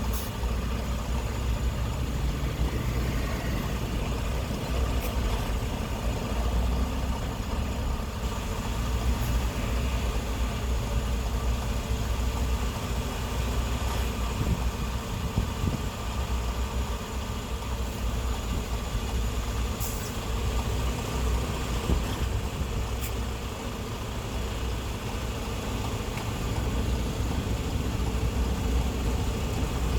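Car driving at freeway speed: a steady low rumble of road and engine noise.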